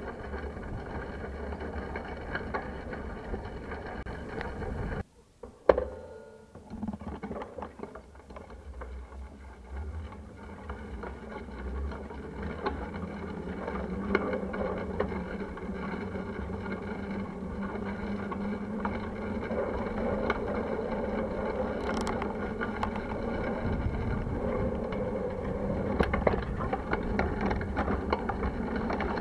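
Wind buffeting the microphone of a handlebar-mounted camera on a moving bicycle, with steady road rumble and many small clicks and rattles. About five seconds in the sound drops out briefly, and there is one sharp loud knock just before six seconds.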